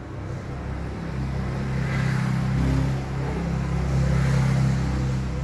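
A low, steady engine hum that grows louder about a second in.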